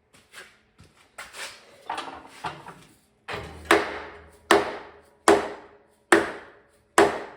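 Sharp knocks from work on a tractor: a few scattered knocks and scrapes, then an even run of hard strikes about one every 0.8 seconds, each ringing briefly.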